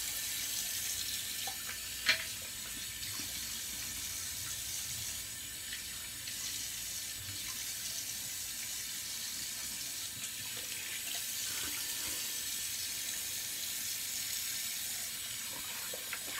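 Bathroom tap running steadily into a sink, with one sharp click about two seconds in.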